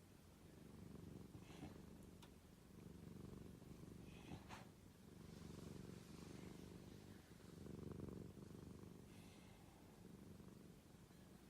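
Ginger cat purring faintly, the purr swelling and easing about every two seconds with its breathing, a contented, relaxed cat.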